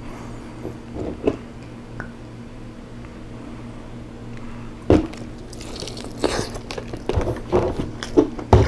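Rotisserie chicken being pulled apart by hand with a few faint clicks, then a sharp knock about five seconds in. After it comes a run of moist biting and chewing on the chicken.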